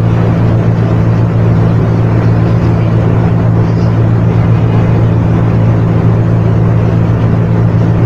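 Loud, steady machine hum with a hiss over it, running unchanged throughout.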